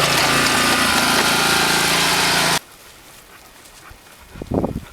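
A small engine running steadily, cut off abruptly about two and a half seconds in. A brief low sound follows near the end.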